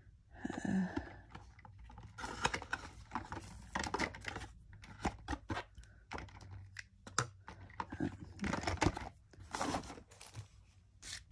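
Small craft supplies, such as alcohol ink bottles and a blending tool, being gathered up and put away on a table: irregular clicks, taps and rustles of paper.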